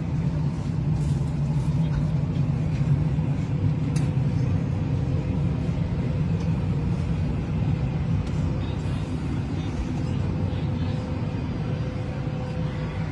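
Steady low hum of an airliner cabin, with a faint steady tone above it and a few light knocks.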